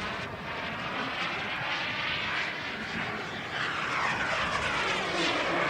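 A turbine-powered RC jet flying past, its hissing engine noise swelling about three and a half seconds in, with the sweeping whoosh of a flyby.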